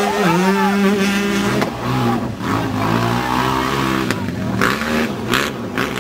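Several enduro dirt bike engines revving up and down as the riders work round the course, the pitch rising and falling as they accelerate and shift. A few short rushes of noise near the end.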